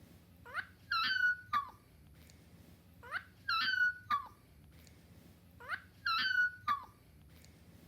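A dog yawning with a squeaky, whining voice: a rising squeak, a held note, then a falling tail. The same yawn repeats three times, about every two and a half seconds.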